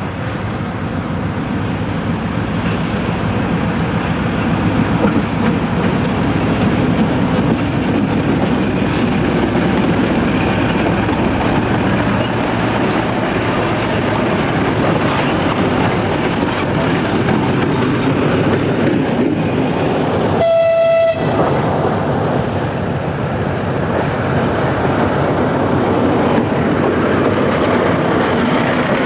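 2M62 diesel locomotive passing close by, its diesel engines running loudly with the wheels rolling over the rails, the noise building over the first few seconds. About two-thirds of the way through, a short locomotive horn blast sounds.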